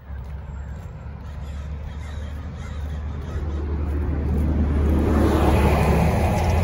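Motor vehicle rumble with wind and road noise, heard from a moving vehicle. It grows steadily louder, most from about four seconds in, as the vehicle picks up speed.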